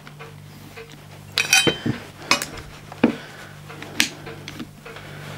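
Small metal parts of a CO2 replica lever-action rifle's receiver clicking and clinking as they are handled and lifted apart during disassembly. A quick cluster of sharp clicks comes about a second and a half in, then single clicks at about two, three and four seconds, over a faint steady low hum.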